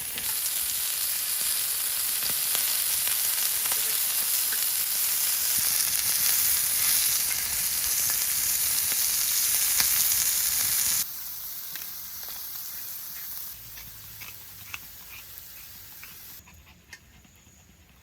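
Pork belly sizzling and frying on a cast-iron gamasot cauldron, a loud steady hiss that drops suddenly about eleven seconds in and grows quieter in steps near the end.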